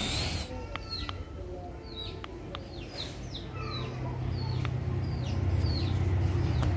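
A toy RC helicopter's rotors whir briefly and cut off; then birds chirp repeatedly in short falling calls, over a low hum that grows louder in the second half.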